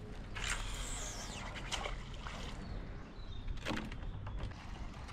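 Water lapping and splashing around a small boat, broken by several short, sharp swishes and knocks, one of them carrying a brief falling whine.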